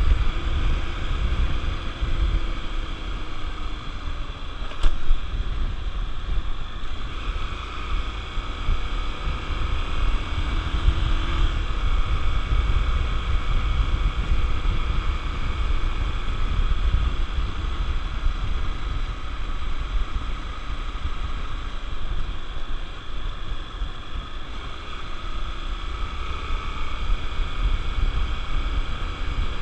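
Honda XR 250 Tornado's single-cylinder engine running on the move, its pitch shifting now and then, under heavy wind buffeting on the microphone.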